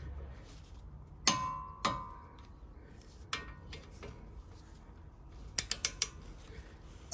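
Click-type torque wrench tightening brake caliper carrier bolts. Two sharp metallic clicks with a brief ring come about a second apart as the bolt reaches the set 80 newton meters, followed by a quick run of ratchet clicks near the end.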